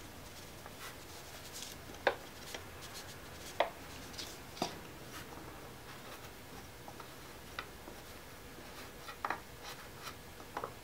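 Sawdust poured into a tin can and packed down with a wooden dowel: quiet rustling and scraping with a handful of sharp knocks, the loudest about two, three and a half and four and a half seconds in.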